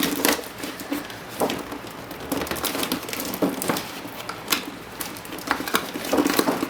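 Packaging being pried and worked loose by hand: irregular clicks, crackles and crinkling as tabbed inserts are pushed free.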